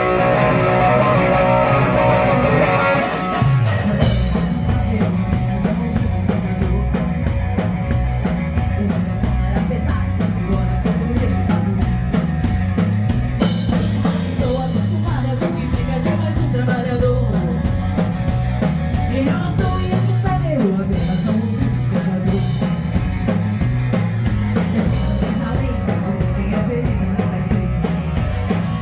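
Rock band playing live in a rehearsal studio: electric guitar chords ring out alone, then the drum kit and bass guitar come in about three seconds in and the band plays on with a steady beat.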